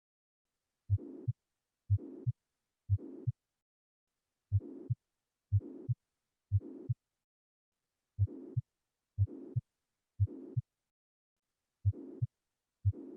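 Recorded heart sounds with a systolic murmur: at about one beat a second, each first heart sound is followed by a steady whooshing murmur that runs right up to the second heart sound. The beats come in runs of three with a short pause between runs.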